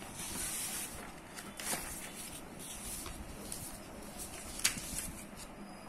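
Ballpoint pen writing on paper: short scratchy strokes, with a couple of sharp clicks, the loudest about four and a half seconds in.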